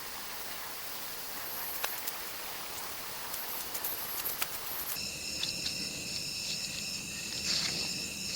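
An even hiss with a few faint clicks, then, about five seconds in, a steady chorus of night insects with several high, even tones.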